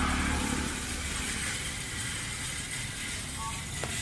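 A motor vehicle's engine passing on the road, loudest at first and fading away to a steady traffic hum, with a faint click near the end.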